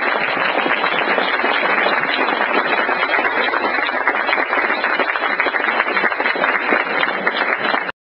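Audience applauding, a dense steady patter of many hands clapping that cuts off abruptly near the end.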